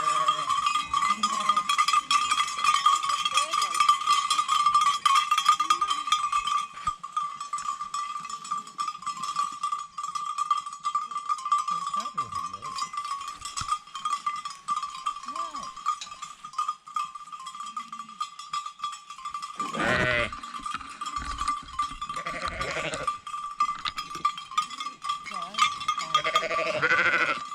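Many sheep bells clanking and ringing without pause as a flock moves, with sheep bleating a few times: twice past the middle and once near the end.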